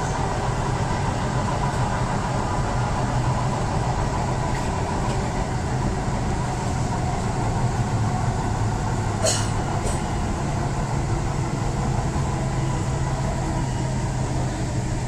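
Metro train running along the track, heard from inside the carriage: a steady rumble and hum. Two short sharp clicks come close together about nine seconds in.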